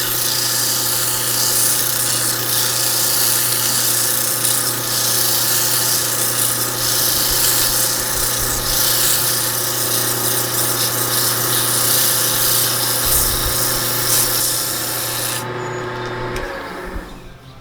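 Wood lathe running with a steady motor hum while the spinning cedar bowl is worked smooth, a loud even hiss of wood being cut away to remove a tool mark. The hiss stops about 15 seconds in; then the lathe is switched off and its hum falls in pitch as it spins down.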